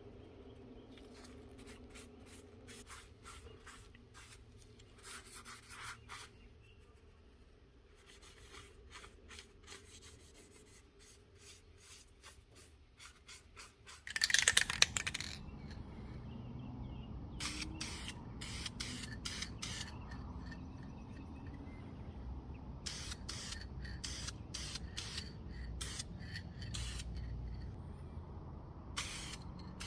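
Runs of short scraping strokes, with a loud noisy burst about halfway through.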